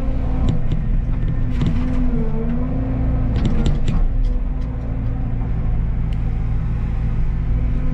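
Diesel engine of a Caterpillar excavator running steadily; its pitch sags briefly about two seconds in as the machine takes load. Sharp cracks and clanks come and go, loudest around the middle.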